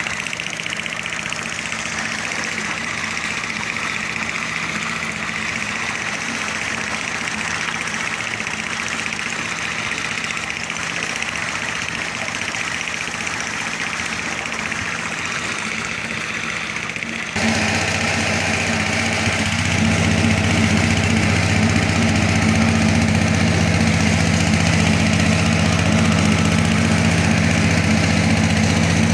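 Plant machinery running steadily, with a constant engine-like low hum. Partway through, the sound abruptly gets louder and heavier in the low end, then rises a little again shortly after.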